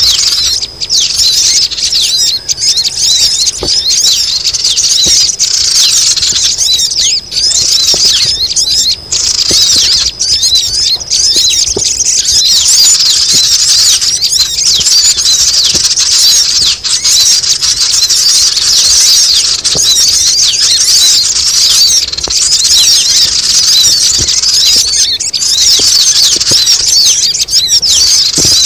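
A dense, noisy chorus of many sogon birds calling at once: a continuous mass of overlapping high-pitched chirps and squeals with no pauses, used as a lure call to draw wild sogon down.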